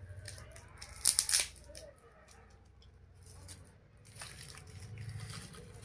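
Packaging rustling and crinkling as a parcel is handled and searched, with a louder burst of crackling about a second in and more rustling near the end.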